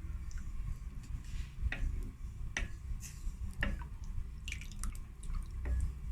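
A utensil stirring thickening béchamel sauce in a pot, with wet squelching and a sharp tap against the pot about once a second.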